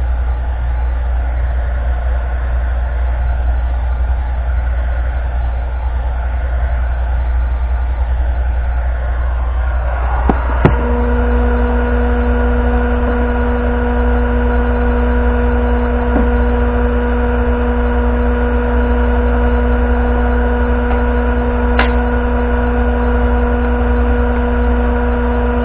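Electric heat gun running steadily, its fan blowing with a low rumble. About ten seconds in there is a click, then a steady pitched hum that carries on alongside the blowing.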